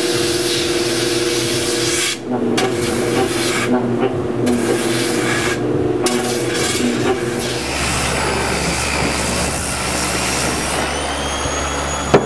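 Motor-driven sanding drum running with a steady hum while a wooden barrel stave is pressed against it, the gritty sanding hiss breaking off briefly a few times as the wood is lifted. About seven seconds in the sound changes to a lower steady hum with continued sanding hiss.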